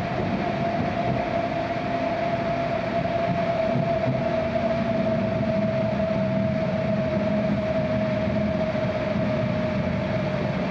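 Cabin sound of an E6 series Shinkansen car running in toward its terminal stop: a steady whine that sinks slowly in pitch as the train slows, over a continuous running rumble.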